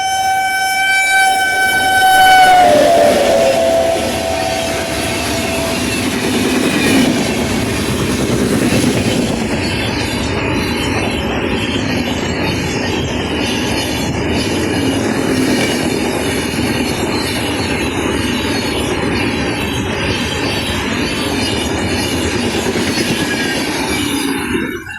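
WAP7 electric locomotive horn giving a long shrill honk that drops in pitch as the locomotive passes, fading out a few seconds in. Then the coaches of an express train roll past with steady wheel clatter, cutting off suddenly near the end.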